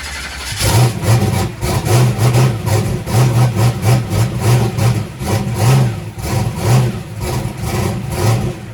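Drag-race car engine on Holley EFI cranking, then catching about half a second in and running with a loud, lumpy, uneven idle. It is a hard-starting engine finally firing.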